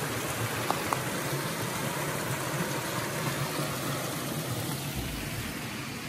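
Small waterfall running over rocks into a pool: a steady rushing of water. The stream is running low in a dry spell.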